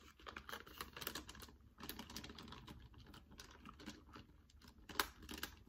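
Faint, irregular crackling clicks of a plastic sour strips candy pouch being handled and crinkled, with one sharper click about five seconds in.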